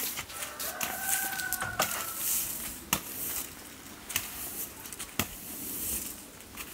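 Long-handled broom sweeping stone patio tiles in repeated hissing strokes, with a couple of sharp knocks of the broom head on the paving. A rooster crows once about half a second in, lasting under two seconds.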